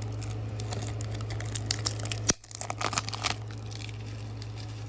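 Plastic wrapping of a trading-card pack crinkling and tearing as it is opened by hand, busiest in the first three seconds with a sharp click a little past halfway, over a steady low hum.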